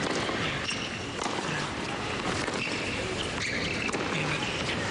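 Tennis rally on a hard court: a few sharp pops of racquet hitting ball, a second or two apart, over the steady hum of a large stadium crowd with scattered calls from the stands.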